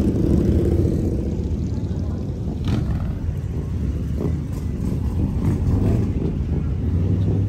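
Car engine running with a low, steady rumble, with indistinct voices behind it.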